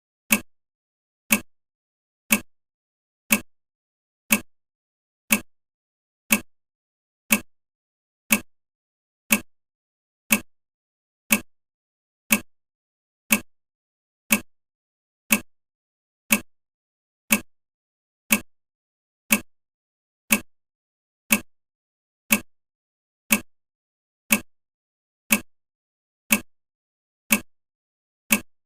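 Countdown timer ticking once a second: a short, sharp tick every second, evenly spaced and unchanging.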